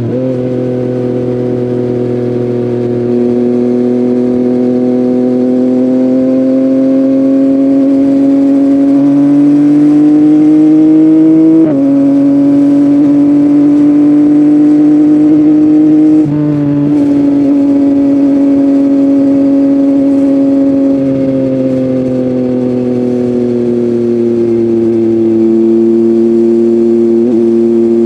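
Yamaha MT-09's inline three-cylinder engine running through an Akrapovic full-system exhaust while the bike is ridden at steady cruising revs. The pitch creeps up slowly and drops abruptly twice, like gear changes, then sinks gradually as the bike eases off.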